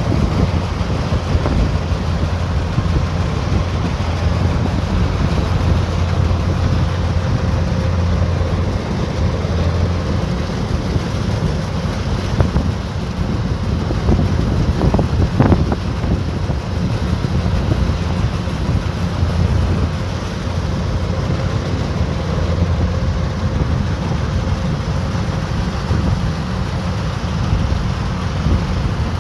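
Combine harvester running steadily at working speed, a loud, even engine and machinery drone. A brief knock sounds about halfway through.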